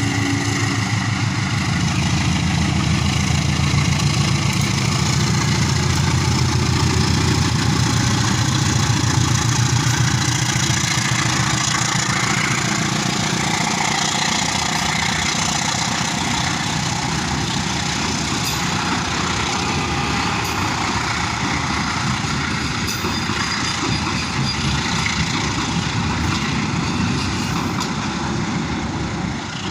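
Diesel locomotive of an Indonesian passenger train passing close by: a heavy engine rumble first, then the steady rolling and rattling of the train that eases off slightly near the end.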